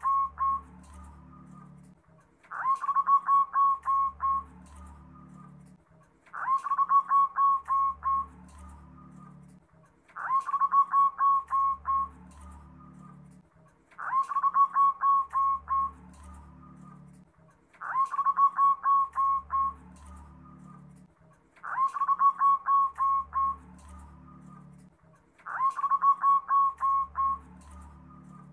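Zebra dove (perkutut) singing its cooing song: a quick run of ringing staccato notes lasting about a second and a half, repeated every four seconds or so.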